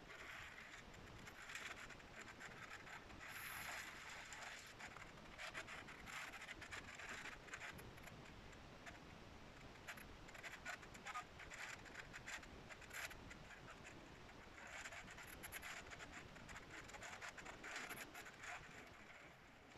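Faint heavy rain in a thunderstorm: a steady hiss of downpour with fine pattering of drops, swelling and easing unevenly.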